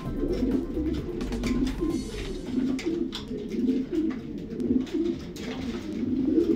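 Many racing pigeons cooing together, a continuous overlapping chorus of low warbling coos, with a few light clicks.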